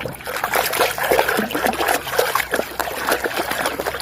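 Water trickling and splashing over a muddy toy vehicle as it is washed, with many small irregular splashes.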